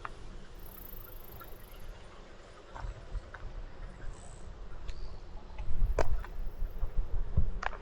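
Spring-fed stream flowing steadily, with a low rumble and a few sharp clicks and knocks in the second half, the loudest about six seconds in.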